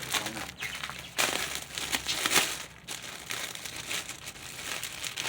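Packaging crinkling and rustling irregularly as it is handled and opened, with a few louder crackles.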